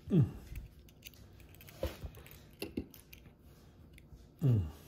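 Pliers clamping the knot on nylon fishing line at the hook, with a few small sharp clicks about two and three seconds in. Two short sounds dropping in pitch come near the start and near the end.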